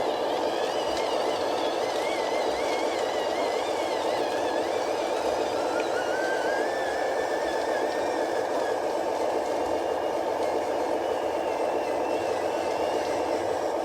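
Small electric motors and gearboxes of a radio-controlled model construction vehicle running steadily, with a thin whine that wavers up and down in pitch as the throttle changes.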